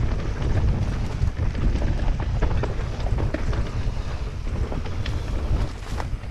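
Wind buffeting the microphone on a fast mountain-bike descent, with the Fezzari La Sal Peak 2.0's tyres rolling over a dirt trail. Scattered clicks and knocks from the bike and trail run underneath, a couple of sharper ones near the end.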